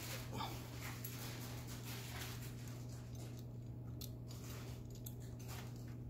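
Faint, irregular light clicks and scrapes of a lock pick and tension tool working the levers inside an old Adlake railroad lever padlock, over a steady low hum.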